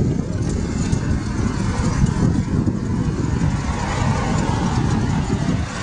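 Steady rumbling wind and road noise from a recumbent trike on the move.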